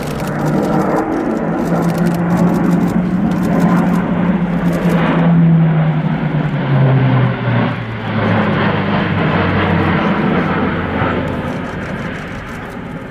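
Airbus A400M Atlas's four TP400-D6 turboprop engines and propellers droning as it passes low overhead. The low propeller hum is loudest about five seconds in, drops in pitch as the aircraft goes past, and fades near the end.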